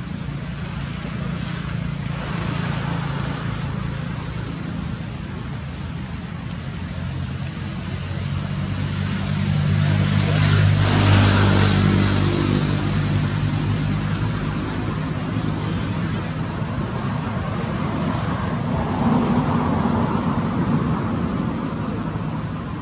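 A motor vehicle's engine hum passing by, growing louder to a peak about halfway through and fading again, with a second, smaller swell near the end over steady outdoor background noise.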